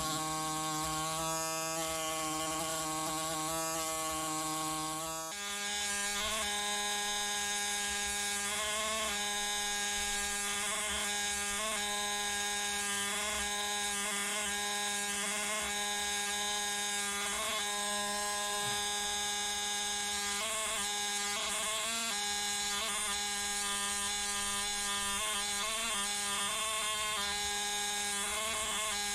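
A small handheld power tool used to prepare a fossil, buzzing steadily as it works stone away from the shell. Its pitch drops slightly about five seconds in, then holds steady.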